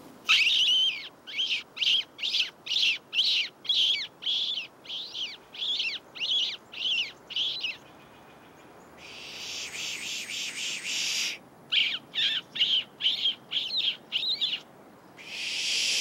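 A person kissing the back of his hand to make high, bird-like squeaks, about two a second, meant to draw curious birds in. The squeaks are broken by a drawn-out 'pshhh' pishing hiss about halfway through and again near the end.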